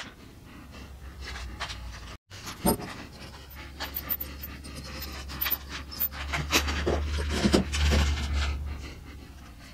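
Glue being squeezed from a plastic bottle and spread along the board joints: small clicks, squishes and handling noises over a low hum, with heavy breathing close to the microphone.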